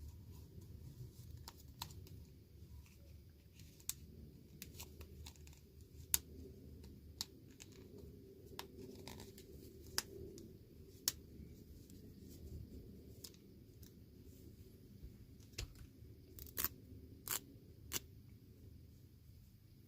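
Hands unboxing small plastic toys and their packaging: scattered sharp clicks and taps, with some cutting and tearing of packaging, at an uneven pace.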